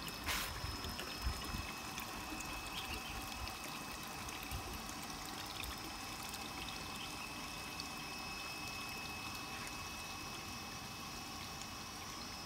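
Steady trickle of water from a fish-farm gravel filter's outflow. The flow is weak because the filter beds are clogged.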